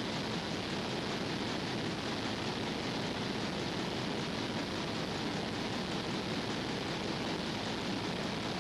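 Steady, even hiss with no other sounds in it; no clicks of the spanner or bolts can be heard.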